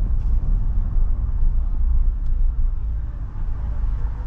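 Vehicle driving at low speed, heard from inside the cabin: a steady low rumble of engine and road noise.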